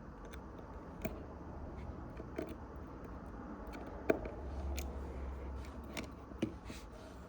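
Scattered small clicks and taps of a precision screwdriver and tools working the tiny screws inside an iPhone 6S, the sharpest tap about four seconds in.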